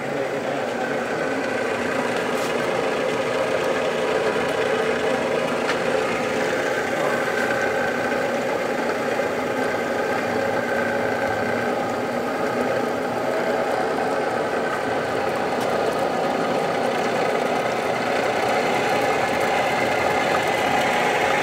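Tree vertical knee mill running, a steady mechanical hum from its motor and head with a faint steady whine in it.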